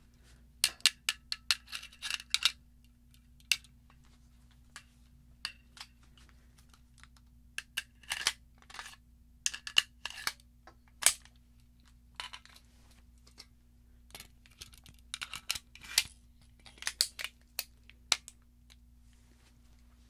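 Springfield Armory 1911 Lightweight Operator pistol worked by hand with snap caps: magazine, slide and hammer cycled and dry-fired. The result is a run of sharp metallic clicks and clacks in three clusters, near the start, in the middle and near the end.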